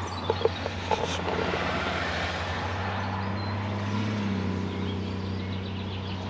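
A motor vehicle going past: a rushing noise that swells toward the middle and fades, over a steady low hum, with a few light clicks in the first second.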